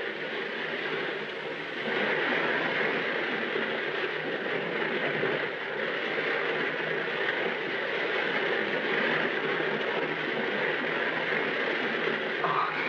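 Sound effect of a storm at sea: a steady rush of waves and rain that grows louder about two seconds in.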